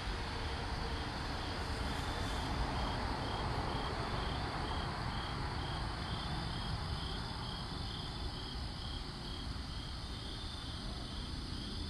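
A cricket chirping steadily, about three evenly spaced chirps a second, over a steady hiss.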